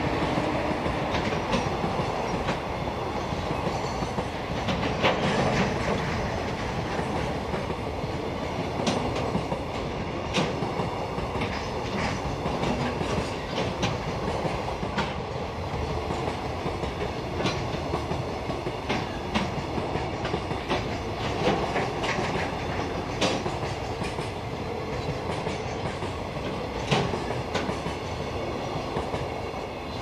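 Freight train wagons rolling past at a level crossing: a steady rumble and rail hiss, with irregular wheel clicks over the rail joints. It tapers off near the end as the last wagons go by.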